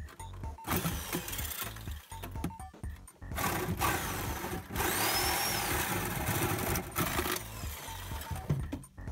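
A handheld power tool cutting through a Volkswagen Jetta's steel body panel. It runs in two spells, a short one about a second in and a longer one through the middle, with background music throughout.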